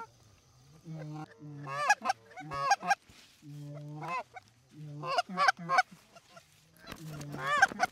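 Canada goose honks, repeated in quick runs: each call a low note breaking upward into a higher honk.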